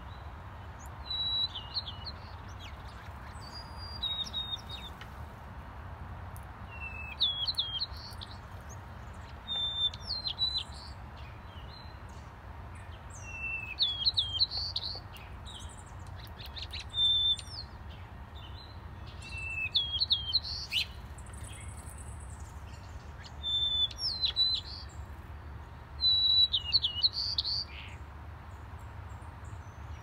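A songbird singing short, warbled phrases, about nine of them, one every three seconds or so, over a faint steady low rumble.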